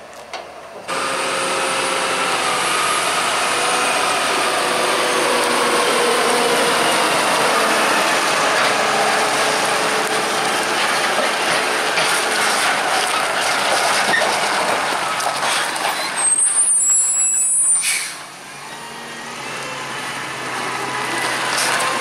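New Holland T7.245 tractor running under load as it pulls a full Bailey tri-axle maize trailer, a steady engine and drivetrain noise with a wavering whine in it. Near the end comes a high squeal lasting about two seconds; then the noise drops off and builds again.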